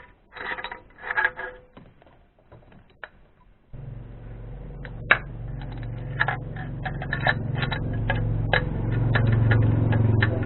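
A few metallic clinks, then about four seconds in the BMW E36's M43 four-cylinder engine comes in running at idle, a steady low hum with fast ticking over it, as it runs on its new spark plugs.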